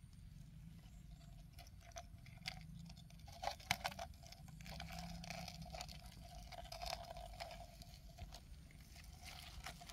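Faint handling noise of hands working through dry plant debris and soil around a plastic cup, with scattered sharp clicks, the loudest cluster about three and a half to four seconds in.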